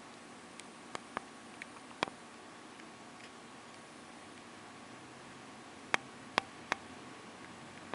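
Light, sharp clicks over faint room tone: four in a quick scatter about a second in, then three more close together about six seconds in.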